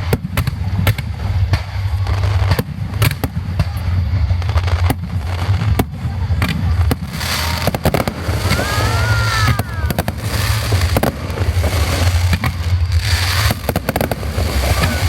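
Aerial fireworks display: shells bursting in rapid, repeated bangs over a continuous deep booming rumble. From about halfway through, a dense crackling layer joins the bangs.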